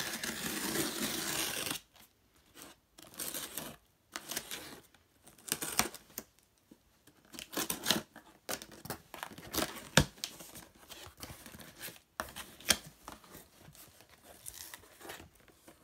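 Packing tape on a cardboard shipping box being cut with scissors and torn off. A continuous tear runs for about the first two seconds, followed by scattered snips, clicks and cardboard scrapes as the flaps are pulled open.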